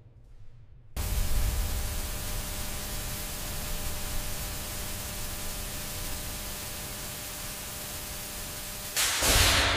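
Loud, steady static-like hiss that starts abruptly about a second in, with a faint steady hum underneath, ending in a louder whoosh near the end that fades away.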